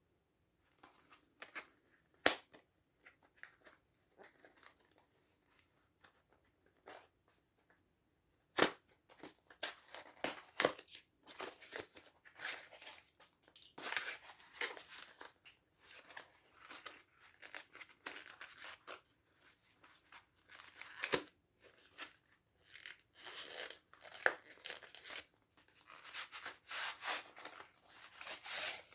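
Packaging being handled and unwrapped, with irregular rustles, crinkles and small clicks. It is sparse at first and becomes busier from about eight seconds in.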